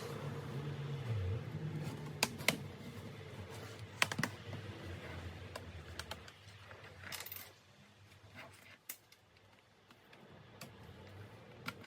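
Scattered small plastic and metal clicks and taps from handling a laptop and its parts, a dozen or so spread irregularly, with a faint low hum through the first half.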